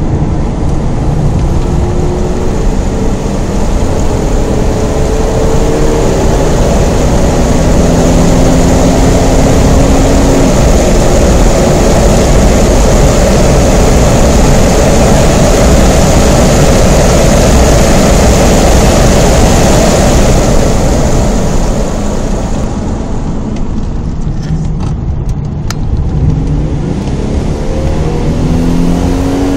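Holden VT Commodore's Ecotec V6 heard from inside the cabin under hard acceleration, the engine note rising in pitch over the first several seconds, with loud steady wind and tyre noise at speed. About two-thirds through the sound drops away as the throttle comes off, and the engine note rises again near the end.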